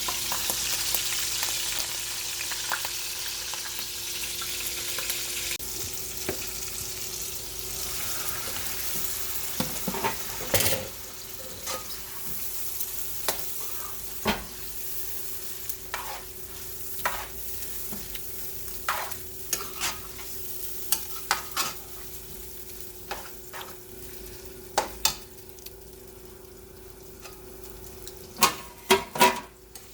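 Chicken frying in oil in a pan, sizzling loudest at first and then fading, while a cooking utensil scrapes and knocks irregularly against the pan as it is stirred, with a quick flurry of knocks near the end. A steady low hum runs underneath.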